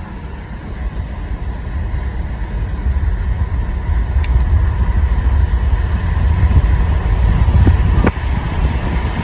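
Low, steady engine rumble, like a car running, growing louder over the first few seconds. A faint click comes about four seconds in and a sharper one about eight seconds in.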